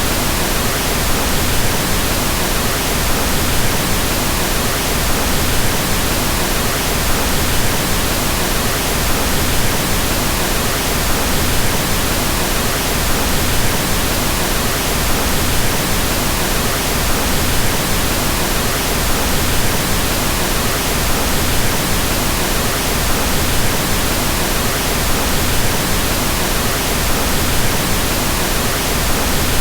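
Pink noise: a steady, even hiss with more weight in the low end, unchanging throughout.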